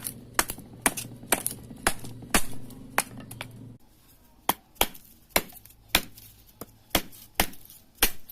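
Sharp chopping strikes from a handmade bushcraft knife, roughly two a second, each short and without ringing; a low steady hum underneath stops about four seconds in.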